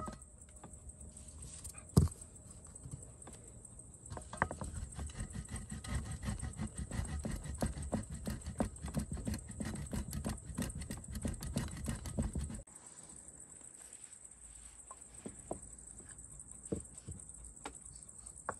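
Rapid, dense clicking and knocking of kitchen utensils working food, starting about four seconds in and cutting off suddenly some eight seconds later, with one sharp knock shortly before it and a few scattered taps after.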